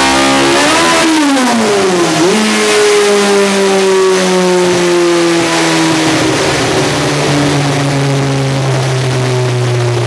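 BMW M12 Formula 2 four-cylinder race engine in a BMW 2002 Group 5 car running on a chassis dyno. The revs rise briefly, fall sharply, jump back up about two seconds in, then fall slowly and steadily.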